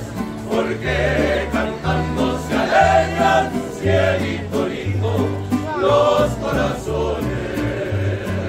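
Mexican-style song with group singing over a bass line that moves to a new note about once a second.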